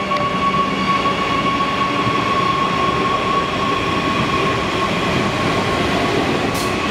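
Adelaide Metro 4000 series Bombardier electric train running out along the platform, a continuous rumble of wheels on rails under a steady high whine.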